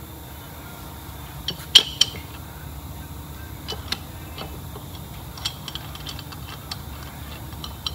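Metal parts of a clutch-type limited-slip differential carrier clinking and clicking as they are handled and taken apart by hand. The clicks are scattered and light, the loudest two about two seconds in, over a steady low hum.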